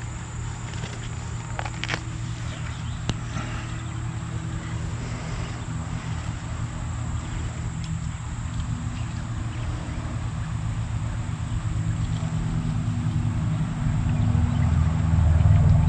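A low, steady engine hum that grows louder toward the end, with a thin, steady high insect drone behind it.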